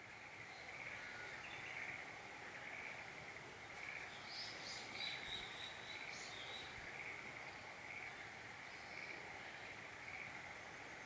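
Faint rural outdoor ambience: a soft call repeats about once a second, and birds chirp briefly in the middle.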